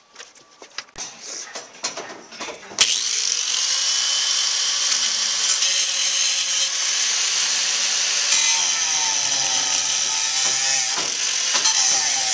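Electric angle grinder starting up about three seconds in, then running steadily as it cuts into the car's crumpled steel quarter panel, its pitch wavering as it is pressed into the metal. A few small clunks come before it starts.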